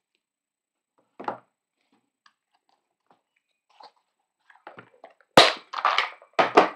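Paper-crafting supplies being handled on a work table: a card set down with a short knock about a second in, a few light ticks, then several loud rustling knocks close together near the end.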